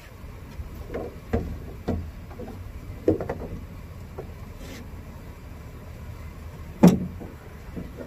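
Handling knocks and clunks as a small battery-powered mini chainsaw is picked up and moved about in a lift bucket: a few short knocks in the first few seconds and one louder clunk near the end, over a steady low rumble.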